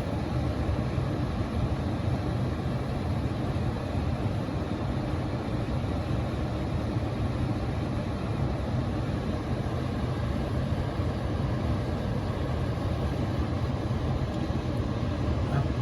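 An HVAC unit running with a steady rushing hum and a strong low drone that doesn't change.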